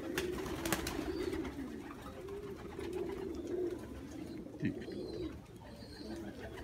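Domestic pigeons cooing continuously, low repeated warbling coos overlapping from several birds, with two sharp clicks in the first second.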